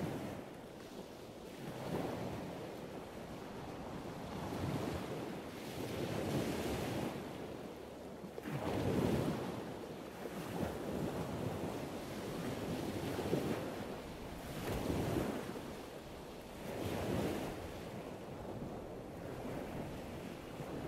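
A steady rushing, surf-like noise that swells and fades every couple of seconds.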